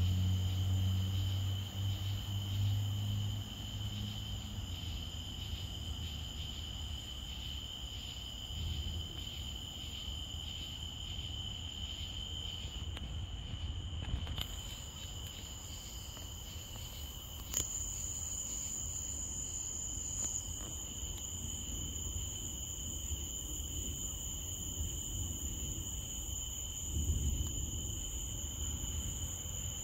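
Night insects, crickets among them, chirping in a steady high pulsing trill, with a second, higher insect joining about halfway through. Distant thunder rumbles low in the first few seconds and dies away, and a brief low rumble returns near the end.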